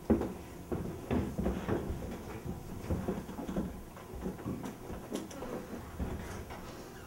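Irregular knocks, thumps and shuffling, as of things being moved about, with the loudest knock right at the start.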